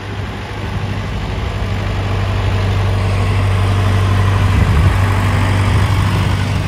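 John Deere 1640 tractor's three-cylinder diesel engine running steadily as the tractor drives past, growing louder as it comes close about five seconds in.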